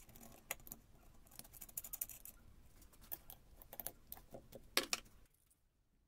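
Small metallic clicks and scrapes of a nut and washer being threaded onto a motor shaft against a flap disc and tightened with a spanner, with a louder clink just before the sounds stop about five seconds in.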